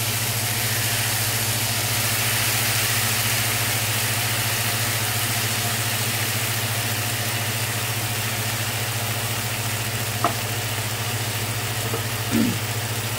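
Onion, garlic and eggplant sizzling in a frying pan, an even hiss that swells at the start, over a constant low hum. A single sharp click about ten seconds in.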